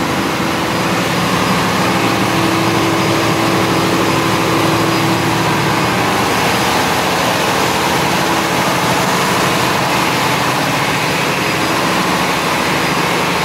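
Cummins QSM11 diesel auxiliary generator set running steadily in a ship's engine room: a loud, even engine noise with steady hums and no change in speed.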